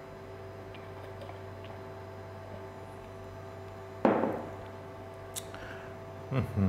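A drinking glass set down on a countertop with one sharp knock about four seconds in, over a steady background hum; a couple of faint clicks follow.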